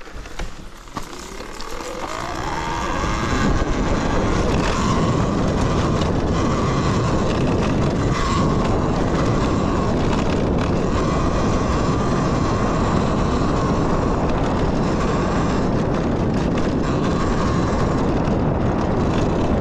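Talaria Sting electric dirt bike accelerating: its motor whine rises in pitch over the first few seconds, then holds steady at speed under a loud rush of wind on the microphone.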